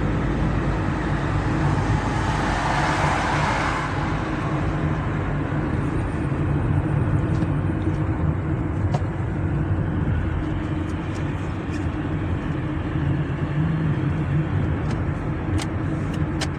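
A car driving along a road: steady engine hum and road noise, with a louder rushing swell about two to four seconds in.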